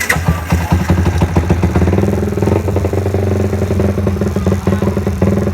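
Motorcycle exhaust note of a Yamaha TFX150 running steadily at idle, with rapid, even firing pulses.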